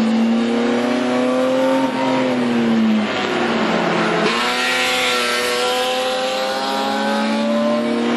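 BMW E30 race car's straight-six engine heard from inside the cockpit at high revs. About two seconds in, the revs drop for a corner, then rise steadily again under hard acceleration.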